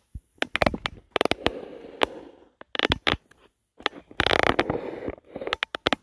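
Dishes, cookware and dishwasher racks being handled: irregular sharp clicks and knocks, with a longer scraping rub about four seconds in.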